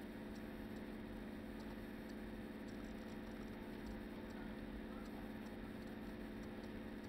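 Steady low electrical hum and hiss from the recording setup, with a few faint computer-mouse clicks scattered through.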